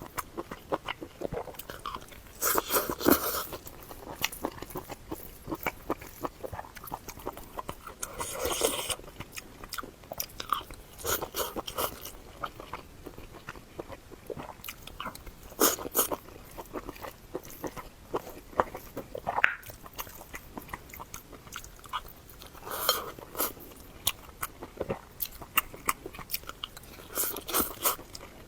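A person chewing food close to the microphone: steady wet clicks of chewing, with louder crunching bites every few seconds.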